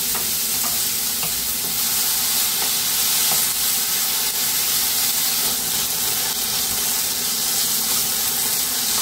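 Chopped bottle gourd sizzling steadily in a little oil in a nonstick kadhai on medium heat, with a wooden spatula stirring it round the pan and a few faint knocks.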